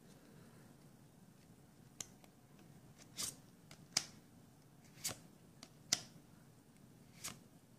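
Trading cards being handled: each card in turn is slid off the front of the stack and tucked to the back, giving about six short, faint snaps and swishes roughly a second apart.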